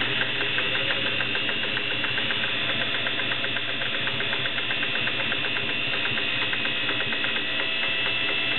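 Singer 401A Slant-O-Matic sewing machine running at a steady speed while sewing a straight stitch: a motor hum with a rapid, even ticking from the stitching.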